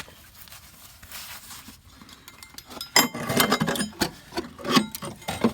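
Irregular rustling and clattering handling noises with a few sharp knocks and clicks, starting about three seconds in after a quieter stretch.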